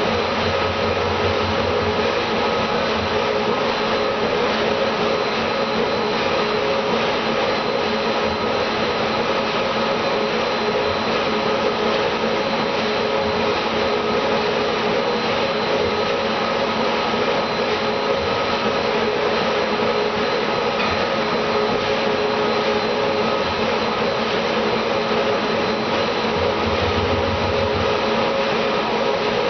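A motor-driven machine running steadily: an even hiss with a constant hum over it, never changing in speed.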